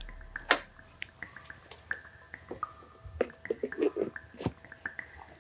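Faint scattered clicks and taps of a plastic countertop blender jar and its lid being handled, with one louder knock about four and a half seconds in.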